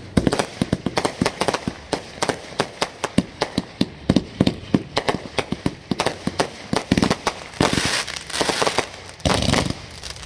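Fireworks going off in quick succession: a rapid string of sharp bangs, several a second, giving way after about seven seconds to denser crackling.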